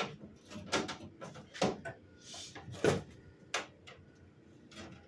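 Sheet-metal floor-pan patch pieces being handled and test-fitted: about six short, sharp knocks and clunks at irregular intervals, the loudest about three seconds in, with a brief scraping hiss just before it.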